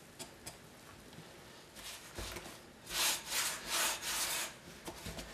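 Flour being mixed into a wet yeast batter in a glass bowl, first with a utensil and then by hand, as the dough comes together: scraping and rubbing against the bowl. Faint clicks at first, then two louder rubbing scrapes about three and four seconds in.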